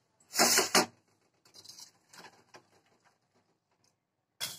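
Hot water sloshing and being poured from a nonstick frying pan into a steel bowl: a loud splashy burst about half a second in, small crackles and drips after it, and another short splash near the end.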